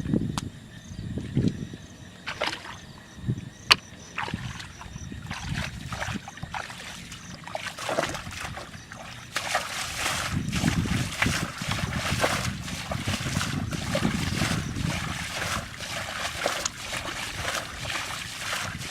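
Water splashing, sloshing and trickling, with a few sharp knocks in the first few seconds and busier, continuous splashing from about halfway.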